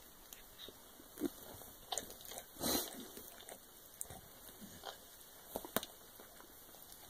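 A barn kitten and a pit bull play-fighting on a bed: a few short, scattered scuffles on the bedding and soft mouthing noises, with a slightly longer rustle near the middle.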